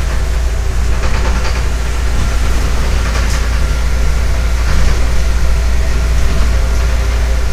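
Steady low rumble of a MAZ-105 articulated bus's engine, heard from inside the passenger cabin, with a few faint knocks from the cabin fittings.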